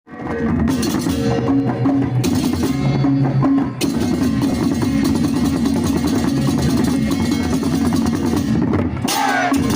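Music with dense, steady drumming and short repeated pitched notes, starting abruptly after a brief silence.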